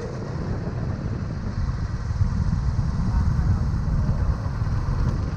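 Motorcycle running along a road, a steady low engine and road rumble that grows a little louder in the middle.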